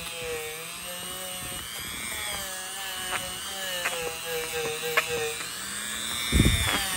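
Dremel rotary tool spinning a small wire wheel inside a carburetor float bowl, scrubbing off rust; its whine wavers in pitch as the wheel is pressed in and eased off, with a few sharp ticks where the brush catches. A dull thump near the end.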